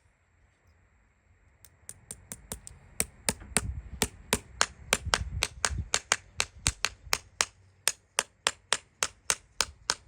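Farrier's hammer striking metal in a quick, even series, about four blows a second, starting just under two seconds in.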